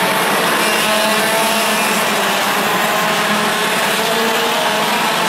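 Several 125cc two-stroke TaG racing kart engines running hard. Many engine notes overlap, rising and falling in pitch as the karts accelerate and lift.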